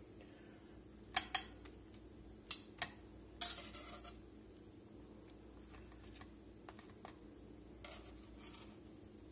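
Metal tongs clicking and clinking against the skillet and bowl as whole cooked shrimp are lifted out and plated: a few sharp clicks in the first four seconds, then faint ticks near the end.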